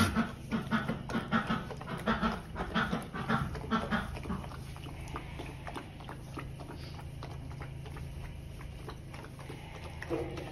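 A puppy lapping water from a plastic bucket: a quick run of rhythmic laps, two to three a second, that stops about four and a half seconds in, leaving a steady low hum with faint scattered clicks.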